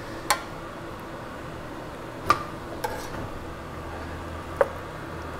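Sharp clinks of kitchen utensils and chicken bones against a dish while a cooked chicken is picked apart, three distinct clinks about two seconds apart, over a low steady hum.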